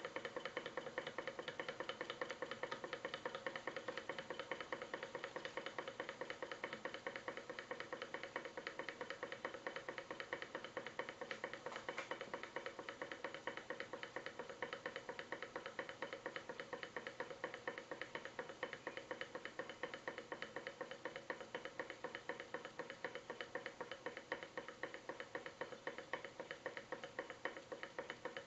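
Model hot air engine running at a steady speed: a rapid, even clicking from its moving parts, with a steady metallic ringing tone under it.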